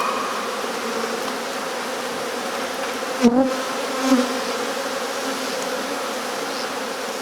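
A swarm of honeybees buzzing steadily, the dense hum of many wings, with a couple of brief louder moments about three and four seconds in.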